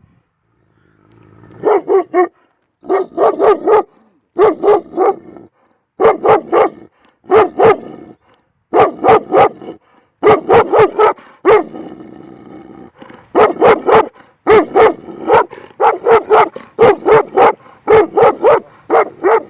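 Dog barking loudly in rapid volleys of three to five barks with short pauses between them.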